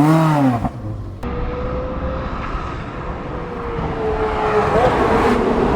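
Ferrari 360's V8 engine through a Tubi exhaust. In the first second it revs up and falls back. It then holds a steady note that drifts slowly lower, steps up in pitch once near five seconds in, and grows louder toward the end.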